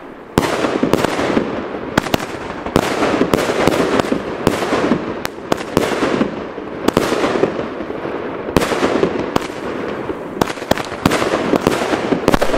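Zaplon F2 fan-shaped firework battery (33-shot, about 500 g cake) firing: a rapid, irregular series of sharp launch reports and loud shell bursts, several a second at times, over a continuous wash of noise from the burning effects.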